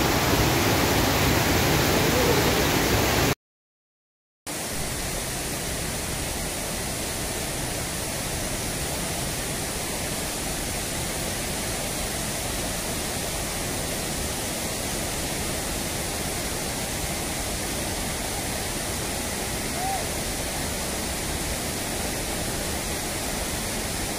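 Floodwater from an overtopped river weir rushing steadily across the ground. About three seconds in the sound drops out for a second, then the rushing resumes a little quieter.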